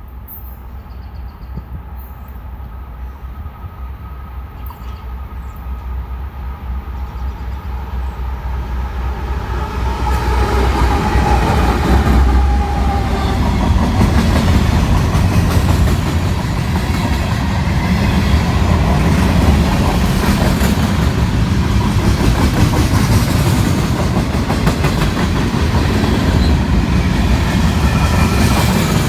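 Freight train led by two GE AC44CW diesel locomotives approaching, growing louder over the first ten seconds. It then passes with a steady rumble and the clickety-clack of wheels over the rail joints.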